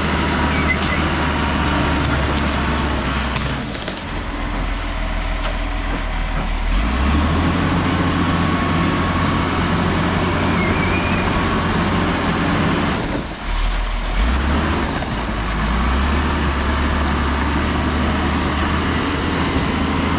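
Case crawler dozer's diesel engine working under changing load as it pushes soil and brush. The engine note sags about four seconds in and again around thirteen seconds, picking back up each time.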